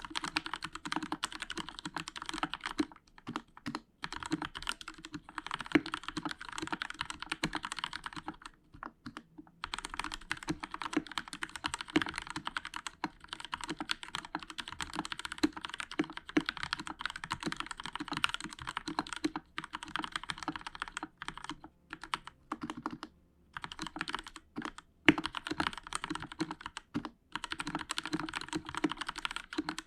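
Continuous fast typing on a Royal Kludge RK61 mechanical keyboard with linear Outemu Red switches, foam under the PCB and lubed stabilizers: a dense run of keystroke clacks, broken by brief pauses between bursts.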